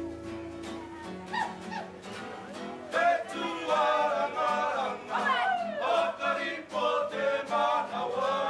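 Kapa haka group singing a Māori waiata poi in unison with vibrato, the voices coming in full about three seconds in, over a steady, even beat.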